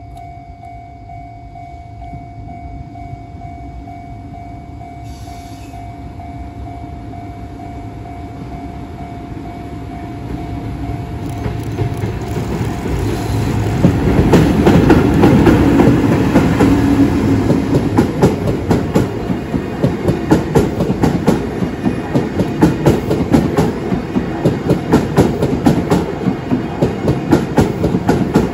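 EF65 2070 electric locomotive hauling Odakyu 5000-series cars on a delivery run, approaching and passing close by. A rumble rises from about ten seconds in and is loudest around fourteen seconds as the locomotive goes by. Then comes a fast, even clatter of wheels over rail joints as the cars roll past. Before the train arrives a steady tone from the level-crossing warning sounds, until the train drowns it out.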